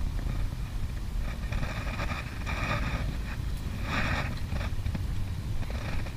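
Wind rumbling on a GoPro action camera's microphone, with a few short scratchy, hissing noises over it.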